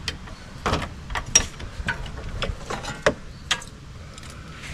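Steel roller drive chain of a 1996 Polaris Xplorer 300 ATV clinking and rattling in a string of irregular clicks as it is pulled apart at the removed master link and slid off its sprocket.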